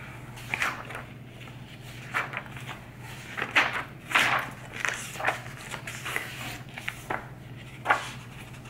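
Paper notebook pages being turned and flipped by hand: a series of short, crisp rustles and flaps at irregular intervals, over a steady low hum.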